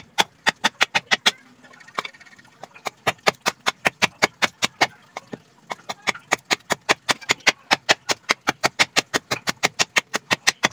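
A golok (machete) blade chopping into a hand-held block of teak wood in rapid, even strokes, about four to five sharp chops a second, roughing the wood into shape. The chopping pauses briefly about two seconds in, then carries on steadily.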